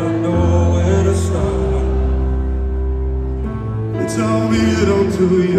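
Music with long held chords over deep bass notes, with some singing.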